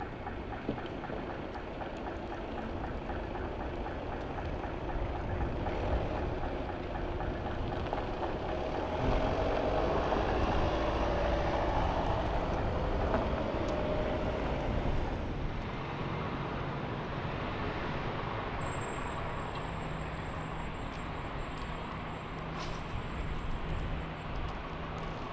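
Traffic on a snow-covered city street: a steady rumble of cars, with one car driving past close by in the middle, its engine and tyres rising and then fading.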